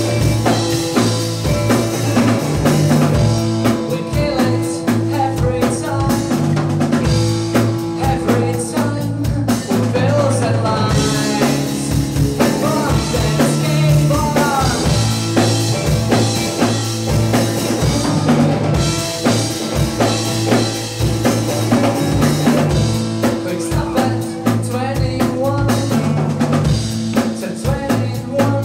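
Live rock band playing loudly, with electric guitar, bass guitar and drums.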